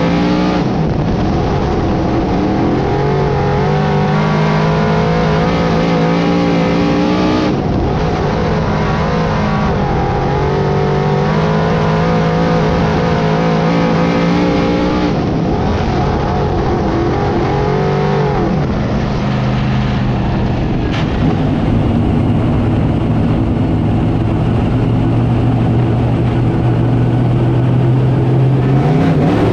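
A dirt modified's 358-cubic-inch small-block V8 running at racing speed, heard from inside the cockpit. The revs drop off and climb back up every seven or eight seconds as the throttle is lifted and reapplied around the track.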